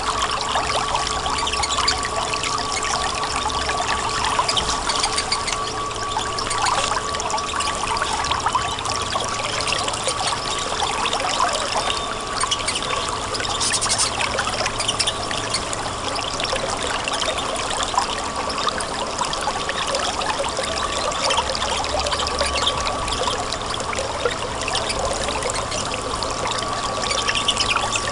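River water flowing and trickling steadily, with a faint steady tone underneath.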